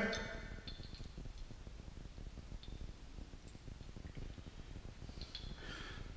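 A few faint, light metal clicks as a main bearing shell is handled and fitted into a main bearing cap, over quiet room tone.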